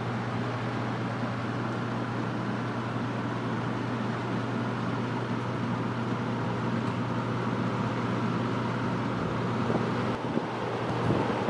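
Early-1980s Torcan 50 cm box fan with five plastic blades running on low speed: a steady rush of air over a constant low hum.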